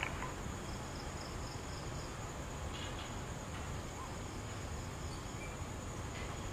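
Night insects, crickets among them, calling faintly over a steady background hiss, with a short run of evenly pulsed high chirps about a second in.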